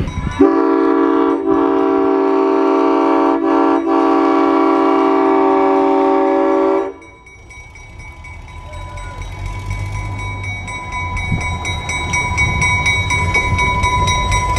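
Nathan M5 five-chime air horn on a GE 80-ton diesel locomotive sounding one long chord for about six seconds, then cutting off sharply. The locomotive's diesel engine then runs and grows louder as it rolls closer, with a steady whine over it.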